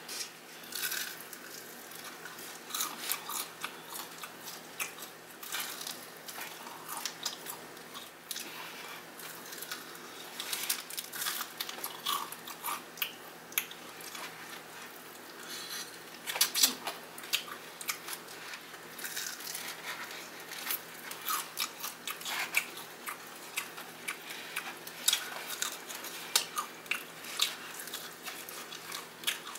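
Close-up biting and chewing of crispy Popeyes fried chicken: irregular crunches of the breaded crust between softer chewing, with one louder crunch a little past the middle.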